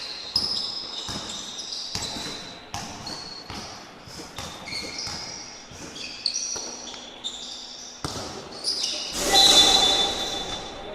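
Sounds of live basketball play on an indoor court: a basketball bouncing and sneakers giving short, high squeaks. About nine seconds in there is a louder burst with a shrill tone.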